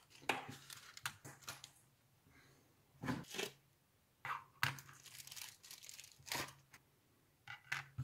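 Small electronic parts being handled and set down on a plastic cutting mat: a perfboard, a screw terminal block and a strip of header pins. It comes as scattered clicks and taps with short rustling noises, in four clusters.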